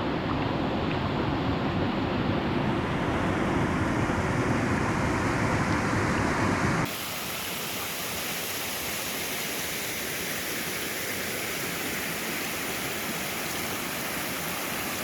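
Rushing water with no speech. For about the first seven seconds it is a heavier, low-weighted rumble with wind on the microphone. An abrupt cut then brings the even, steady hiss of a small waterfall on Flat Creek.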